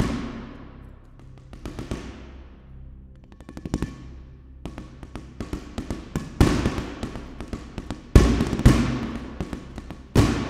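Sampled percussion from Tonehammer's Anti-Drum "Wall Ball" patch: a ball striking a wall, played as a sequenced phrase. Short runs of bounces quicken like a ball settling, then a dense steady stream of hits follows, with several much louder hits that ring out in a long reverberant tail.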